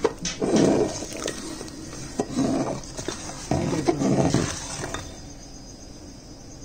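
A long steel ladle stirs freshly added tempering into thick fenugreek-leaf dal in a large metal pot. There are three spells of wet squelching and sloshing, each starting with the ladle clinking against the pot, and it goes quieter in the last couple of seconds.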